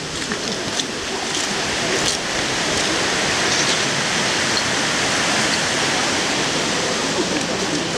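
Steady rushing of a river flowing beneath a bridge, growing louder about two seconds in.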